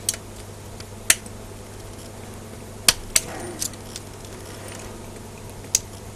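Scattered sharp metallic clicks and taps, about six of them spread out, as a small hand tool and steel parts of an Emotator antenna rotator's gear train knock together during disassembly. A steady low hum runs underneath.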